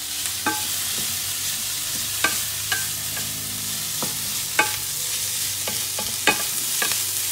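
Shredded confit duck with onion and shallot sizzling in duck fat in a pan, stirred with a utensil that clicks against the pan about eight times at irregular intervals.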